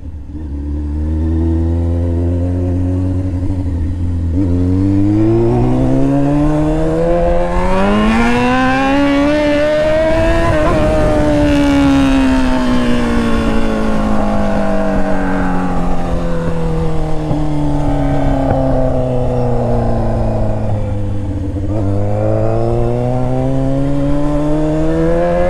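Sport motorcycle's engine heard from the rider's seat, pulling under throttle: its pitch climbs for several seconds, falls slowly for about ten seconds, then climbs again near the end.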